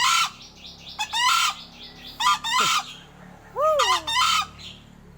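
A crow giving a run of harsh, odd calls in about four bursts roughly a second apart, some with bending, wavering pitch.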